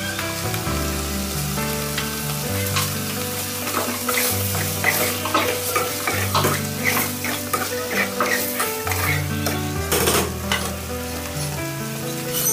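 Pasta frying and sizzling in an aluminium pot on a gas stove while a spoon stirs it, with short clicks of the spoon against the pot, over background music.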